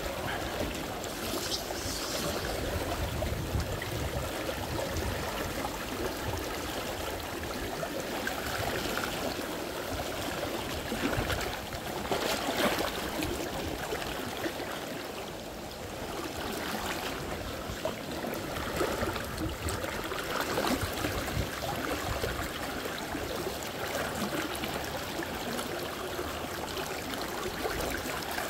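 Flowing, trickling water, steady throughout, with a few louder splashes.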